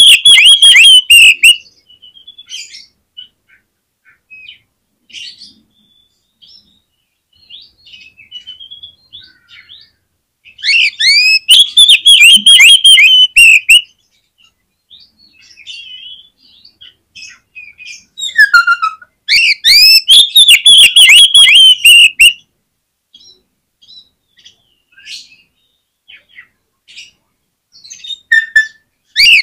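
Oriental magpie-robin (kacer) singing: three loud bursts of fast, repeated, curving whistled notes, each lasting a few seconds, with softer, varied twittering and chirps between the bursts.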